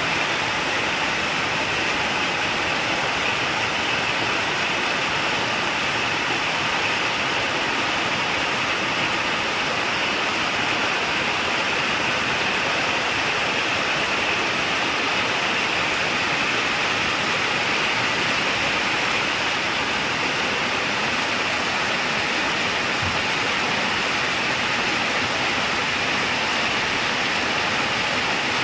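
Heavy rain falling steadily, an even, unbroken wash of sound with no let-up.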